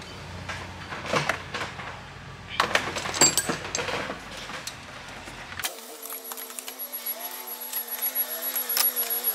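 Metal hand tools clinking and knocking on turbo hardware in a diesel engine bay, in short irregular clusters during the first four seconds. After that comes a quieter stretch with a faint wavering hum.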